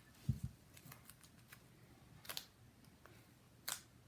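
Faint handling sounds of small homemade squishy toys: a soft low bump about a third of a second in, then scattered sharp clicks and crackles, the loudest a little past two seconds in and again near the end.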